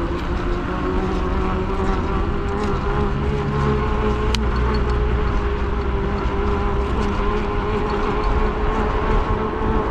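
Steady rumble of road traffic heard from a moving e-bike, with a few faint steady tones over it.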